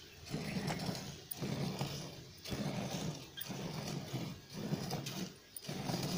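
Cow being milked by hand into a steel pot: squirts of milk hitting the pot in a steady rhythm, about one a second.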